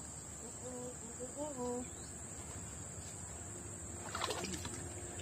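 Steady high-pitched insect chirring, with a short faint voice-like call about a second in and a few soft clicks and rustles near the end.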